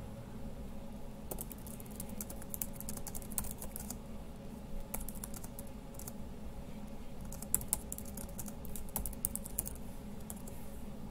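Typing on a computer keyboard: quick runs of keystrokes about a second in and again from about seven seconds, with a few lone keystrokes between, over a faint steady hum.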